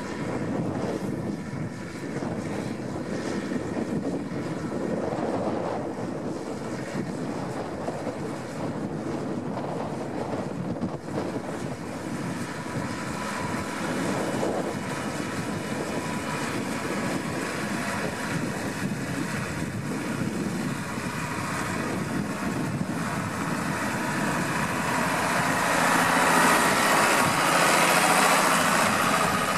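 New Holland TS115 tractor's diesel engine working steadily under load while pulling a mounted plough through the soil. It grows louder in the last few seconds as the tractor comes close.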